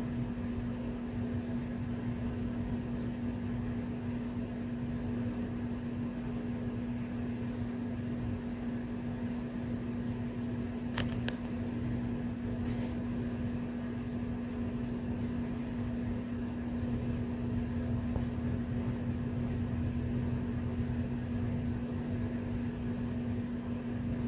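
Steady mechanical hum with one constant low tone, like a fan or appliance running, and a few faint clicks near the middle.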